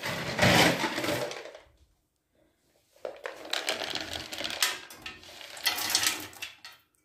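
Dry wood pellets clattering as they are poured from a plastic bowl into a stainless-steel pyrolytic burner tube, in two stretches of dense rattling, the second starting about three seconds in.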